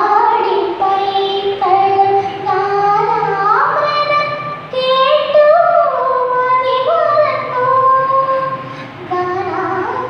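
A young girl singing solo into a microphone, holding long notes and sliding between pitches.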